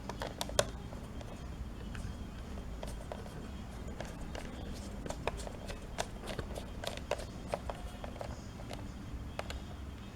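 Small screwdriver tightening the screws of a laptop's bottom cover: scattered light clicks and scrapes of the tool on the screws and case, coming more thickly a little past the middle.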